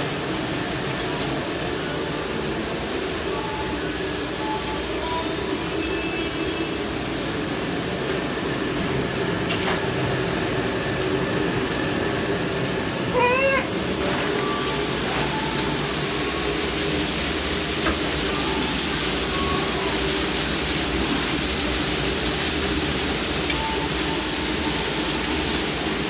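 Commercial conveyor dishwasher running: a steady machine hum and hiss that gets louder and hissier about halfway through, just after a brief run of high, rising squeaky chirps.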